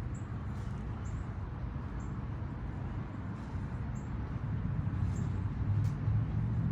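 Short, high bird chirps repeating about once a second over a steady low rumble of wind or distant traffic.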